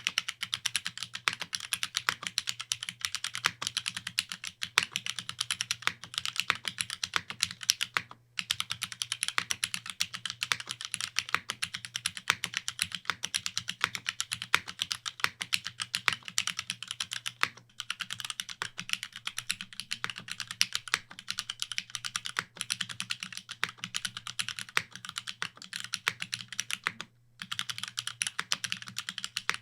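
Fast, continuous typing on a Geonworks Glare TKL top-mount custom mechanical keyboard with GMK keycaps, a dense stream of keystroke clacks over a faint low hum. The typing stops for a moment three times, at roughly a third, three-fifths and nine-tenths of the way through.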